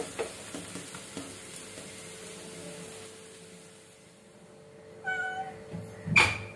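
A domestic cat meowing twice near the end: a short, even-pitched mew, then a louder, sharper meow a moment later.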